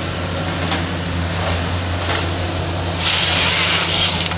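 Cat 320C excavator's diesel engine running steadily as the hydraulics swing and raise the boom carrying the Log Max 5000 harvester head. A loud hiss joins about three seconds in.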